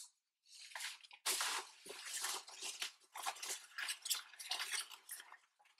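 Hands rummaging through hair-product packaging: irregular rustling and crinkling with light knocks, running until just before the end.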